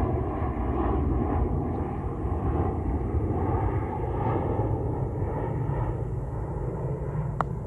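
Steady low rumble of wind buffeting the microphone outdoors, with a single short sharp click near the end.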